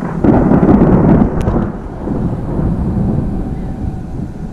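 A thunderclap from a storm close overhead: a sudden deep rumble, loudest in its first second, then rolling on more quietly, with rain falling.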